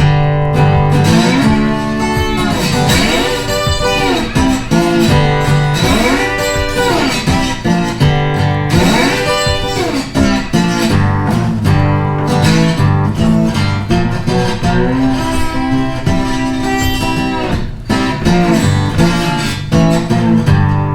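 Background music led by guitar over a moving bass line, with notes that bend up and down in the first half.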